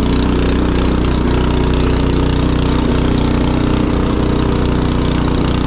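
Craftsman snowblower's gasoline engine running steadily with an even, unchanging note, warmed up after a cold start.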